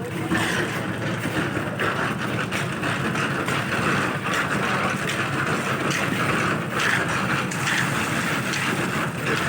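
Concrete mixer running steadily on a building site.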